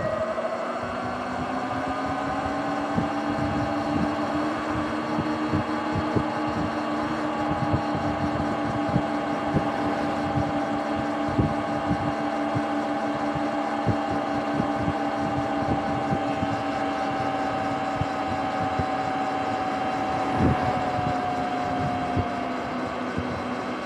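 Sur-Ron electric dirt bike riding on pavement: a steady whine from its electric motor and drivetrain, rising as it picks up speed at the start, then holding steady before easing off near the end. Wind rush on the microphone and tyre noise run underneath, with many short low thumps.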